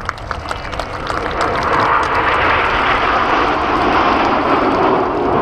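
Formation of BAE Hawk jet trainers flying past. The jet noise builds over the first couple of seconds, then holds steady and loud.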